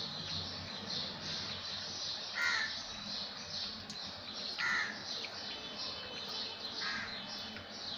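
A crow cawing three times, about two seconds apart, over a constant high-pitched chirping in the background.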